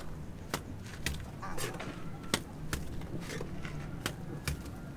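Irregular sharp knocks and taps, about two a second, over a steady low hum, typical of hand work on a building site.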